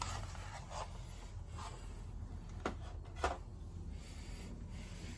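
Handling noise: faint rubbing with a few light knocks, over a steady low hum.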